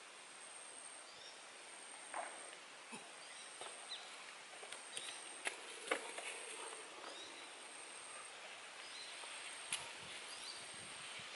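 Quiet forest ambience with short bird chirps and a thin high insect drone that comes and goes. A few sharp clicks, loudest about six seconds in and again near ten seconds, as stones knock against each other on the rocky streambed.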